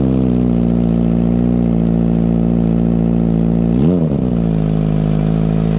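Kawasaki ZX25R's 250 cc inline-four engine idling through an aftermarket DBS muffler, with one quick throttle blip about four seconds in that rises and falls back to idle within half a second.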